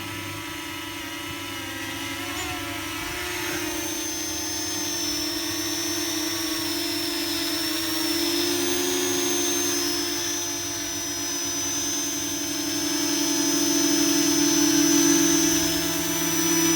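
Parrot Anafi quadcopter's four electric motors and propellers running in flight: a steady buzzing hum with a thin high whine whose pitch shifts a little as the drone manoeuvres, growing louder toward the end.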